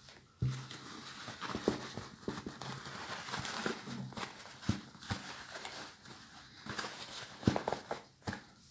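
Hands handling and squeezing a crushed top hat close to the microphone: irregular rustling of the hat's cloth with scattered soft knocks, the loudest about half a second in and again near the end.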